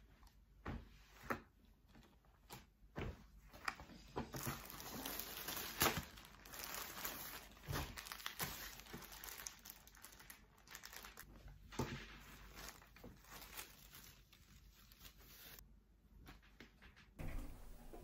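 Clear plastic mailer bag crinkling and rustling as clothes are handled and packed, with scattered light knocks. The crinkling is busiest through the middle and dies away a couple of seconds before the end.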